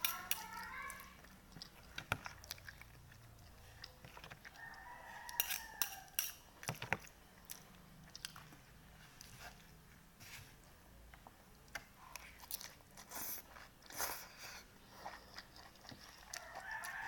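A rooster crowing three times in the background: near the start, about five seconds in and near the end. Sharp clicks and taps of eating and chewing run between the crows.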